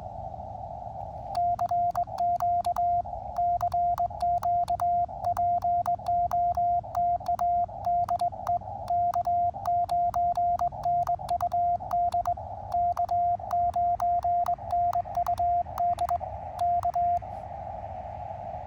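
Morse code sidetone from an Elecraft KX2 transceiver, a single steady tone keyed on and off in dots and dashes by KXPD3 paddles worked as a cootie (sideswiper) key, with sharp clicks at the keying. The sending starts about a second and a half in and stops about a second before the end; before and after it, the receiver's band hiss comes through the narrow CW filter.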